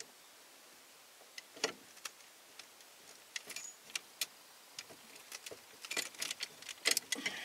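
Scattered clicks, taps and light knocks of plastic housing and small metal parts being handled and fitted on a 1991 Ford F-150 steering column. Sparse at first, busier from about halfway, loudest in a cluster near the end.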